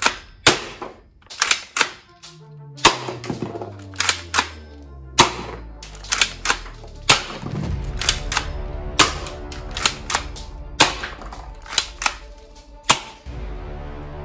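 Toy guns firing about two dozen sharp single shots at uneven intervals, some in quick pairs, stopping near the end, over background music.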